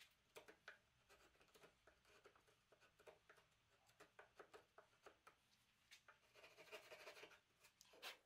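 Hand chisel paring wood to clean up a notch: a string of faint short scrapes and small clicks, with a longer run of scraping about six seconds in.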